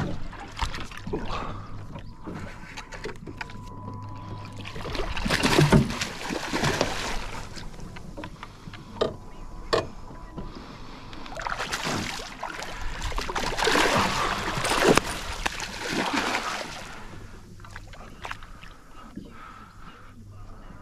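A hooked barramundi splashing and thrashing at the water's surface beside the boat. It comes in two long bouts, about five seconds in and again from about twelve to seventeen seconds.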